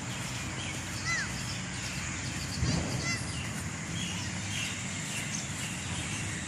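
Birds chirping now and then over a steady outdoor background hiss, with a brief low thump a little under three seconds in.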